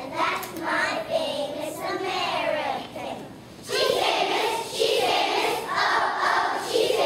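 Children's choir singing together, with hand claps along with the song. The singing dips briefly a little past the middle, then comes back louder.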